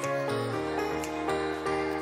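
Background music: sustained chords with notes struck at an even pace, about three a second, and a change of chord shortly after the start.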